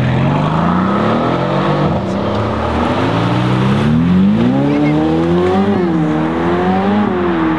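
BMW M4 CSL's twin-turbo straight-six with a loud custom exhaust, accelerating hard. The engine note climbs in pitch, drops back about two seconds in, then climbs again with quick drops near six and seven seconds in as it shifts up.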